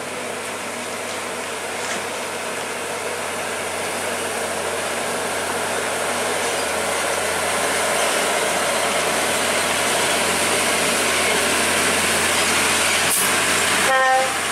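Hino truck's diesel engine pulling up a steep gravel slope under a heavy load, an SDLG wheel loader on its flatbed trailer; the engine and tyre noise grow steadily louder as the truck comes closer. A brief horn blast sounds near the end.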